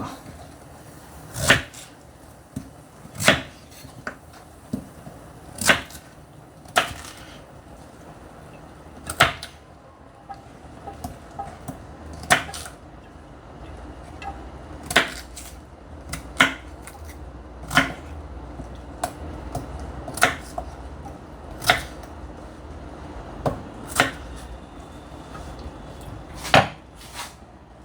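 Knife chopping through root vegetables onto a cutting board: single sharp knocks, one every second or two, at an unhurried pace.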